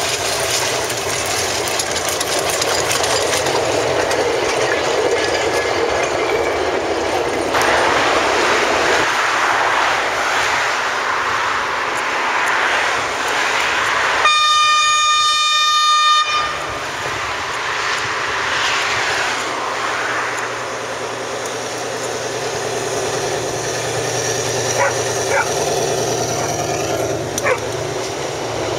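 Narrow-gauge train running past, with a locomotive horn sounding once for about two seconds midway. Afterwards the engine and rolling coaches carry on, with a few sharp clicks near the end.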